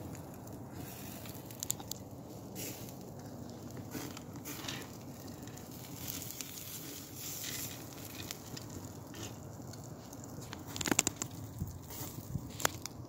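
Open wood fire crackling under a steady rush of flame, with scattered sharp pops and a quick run of louder pops near the end.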